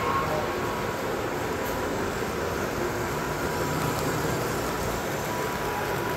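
O-gauge three-rail model train, a pair of Grand Trunk diesel locomotives pulling boxcars, running steadily over tubular steel track as it passes close by: a steady sound of metal wheels rolling on the rails.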